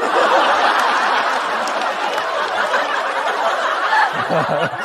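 Studio audience bursting into laughter and applause after a stand-up punchline. It starts suddenly and stays loud, easing slightly near the end.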